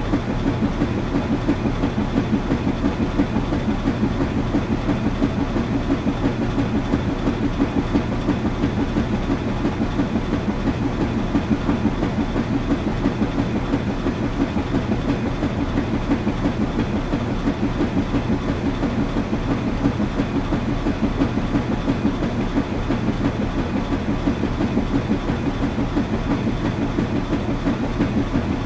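Washing machine running: a steady low rumble with a fast, even flutter that never lets up.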